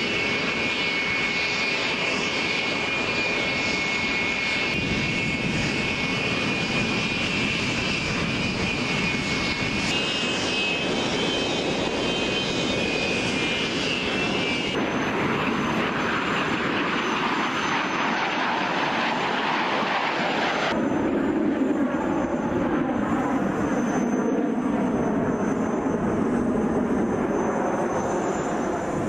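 Aircraft engine noise across several abrupt cuts. A biplane's engine runs steadily on the ground first, then jet trainers are heard taxiing, then a jet formation passes overhead.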